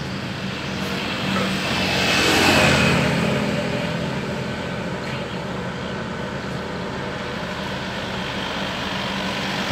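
Diesel truck engine running steadily as it powers a truck-mounted hydraulic crane. A vehicle passes on the road, its noise swelling and fading about two seconds in.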